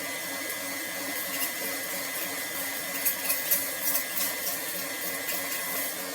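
Slime with orbeez being mixed and mashed by hand, giving a few soft, sticky clicks over a steady whooshing background noise with a faint thin whine.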